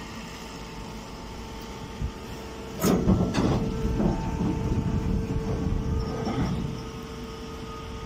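Hydraulic hay baler press running with a steady hum. About three seconds in there is a sharp clank, then several seconds of louder rumbling and rustling as a bagged straw bale comes out of the press and is handled.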